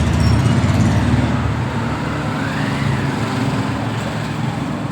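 Steady low rumble of road traffic, a little louder in the first second or so.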